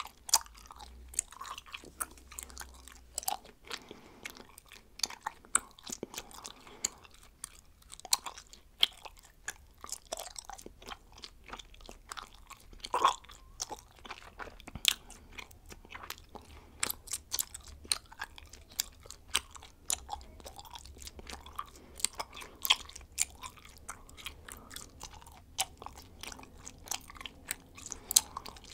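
A person chewing bubblegum: irregular clicks and snaps of the mouth working the gum, several a second, with a few louder snaps among them.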